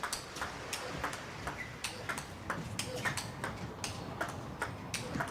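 Table tennis rally: the celluloid ball clicking off rackets and the table in quick, irregular succession, with a player grunting on his shots.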